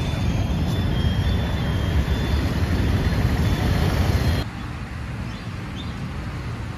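Vehicle and road traffic noise: a steady, heavy low rumble with a hiss over it. About four and a half seconds in it suddenly drops to a quieter rumble.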